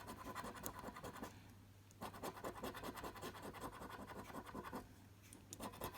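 A scratch card being scratched off in quick, rapid strokes. The scratching comes in three runs, with short pauses about a second and a half in and near the end.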